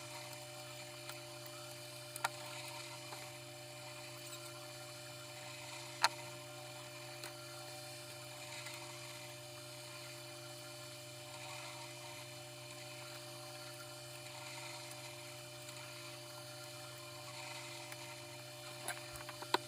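Steady low electrical hum, with a few sharp clicks about two seconds and six seconds in and again near the end.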